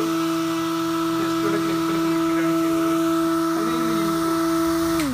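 Small electric blower motor salvaged from a hot air rework station, spinning a pink plastic propeller: a steady motor hum with a rush of air. Right at the end it is switched off and the hum falls in pitch as it spins down.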